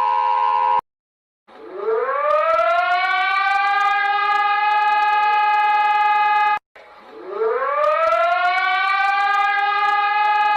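Emergency siren winding up from a low pitch to a steady tone and holding it for about five seconds, then cutting off abruptly and winding up again to the same steady tone. Just before the first wind-up, a steady alert tone of several pitches ends under a second in, followed by a brief silence.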